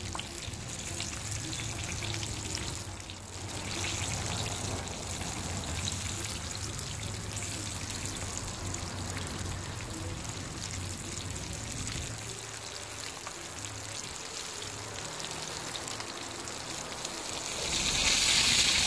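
Porgy fish frying in a skillet of hot oil, sizzling steadily with many fine crackles and pops. Near the end the sizzle grows louder as tongs move the fish in the oil.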